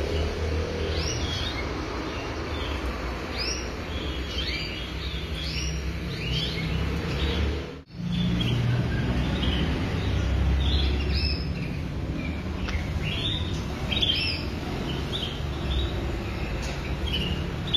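Canaries giving short, sharp chirping calls, one after another at irregular intervals, over a low steady background rumble, with a brief gap about eight seconds in.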